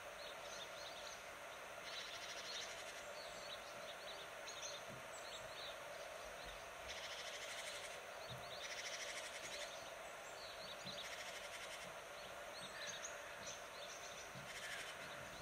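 Small birds chirping and twittering, many short high calls overlapping, with several spells of rapid trilling.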